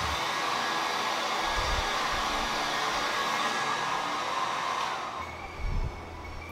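Handheld heat gun blowing a steady rush of air over wet epoxy resin, which pops surface bubbles. It is switched off and winds down about five seconds in, followed by a low thump near the end.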